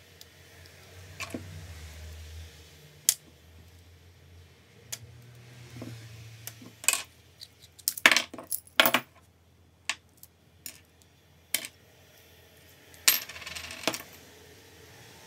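Small metal clutch parts of a Makita 6222D cordless driver drill clicking and clinking as they are pulled apart by hand and set down on a wooden workbench. The sharp clicks come scattered, with a quick cluster about eight seconds in and another near the end.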